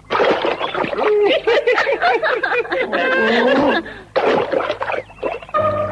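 Cartoon soundtrack: wordless character voices gliding up and down, with water splashing as something is hauled from the water. Music comes in near the end.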